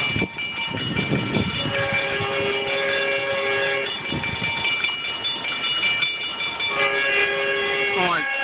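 Metrolink train horn sounding two long blasts about two seconds apart, the second one falling in pitch as it ends. A railroad crossing warning bell rings steadily throughout.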